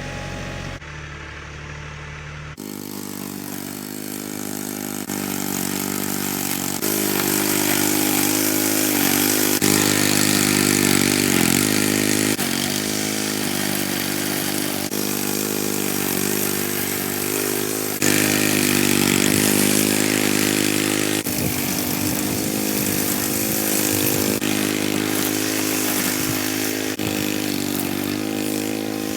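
A machine engine running at a steady speed that dips and picks up at times, in a series of clips joined by sudden cuts.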